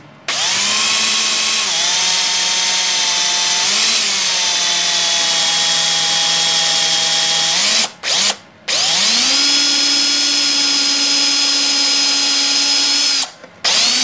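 Porter-Cable cordless drill's motor whining as it drills pilot holes into wood: two long runs, stopping briefly about eight seconds in and again near the end, the pitch shifting a little within each run.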